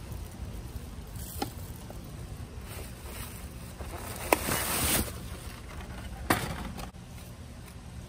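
Plastic trash bags being handled and shifted in a dumpster: rustling and crinkling of plastic, with a few sharp knocks about one, four and six seconds in. A steady low rumble runs underneath.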